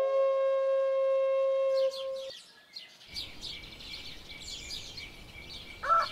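A flute holds one long note, which breaks off about two seconds in. Birds then chirp over a faint outdoor hiss, and a rooster starts to crow near the end.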